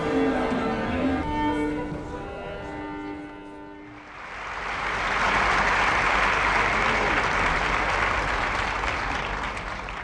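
Orchestral music with strings holding long notes, fading down over the first four seconds. Then audience applause swells in and carries on, easing off slightly near the end.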